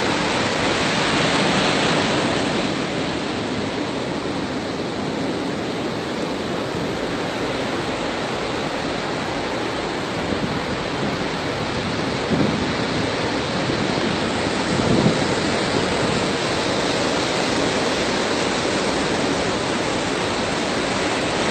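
Sea waves breaking and washing ashore in a steady rush of surf, with wind on the microphone. Two brief louder thumps stand out about twelve and fifteen seconds in.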